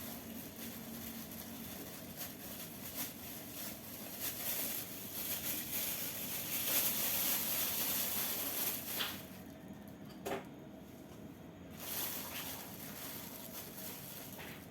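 Soft rustling and scraping with a few light knocks as flour is added to a mixing bowl, a little louder in the middle.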